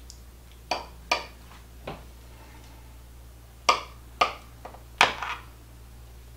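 A metal knife blade clicking and tapping against the bottom and sides of a glass baking dish while cutting through a layered dessert with a graham cracker crust: about seven sharp clicks at uneven intervals, the loudest a little past the middle.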